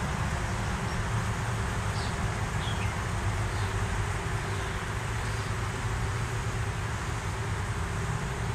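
Steady low rumble and hiss of outdoor background noise, with a few faint, short high chirps between about two and five seconds in.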